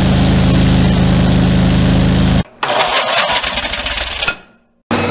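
Garden-tractor engines running in short edited clips. A steady engine run cuts off sharply about two and a half seconds in. A shorter, noisier, hissier stretch of machine sound follows and fades out, and another engine starts running just at the end.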